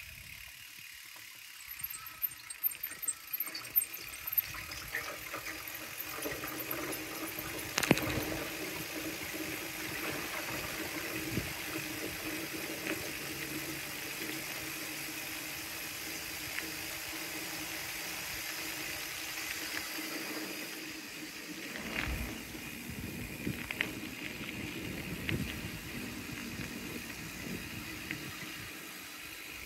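Bicycle rolling along a paved path: a steady rush of tyre and wind noise with scattered rattling clicks, the sharpest about eight seconds in.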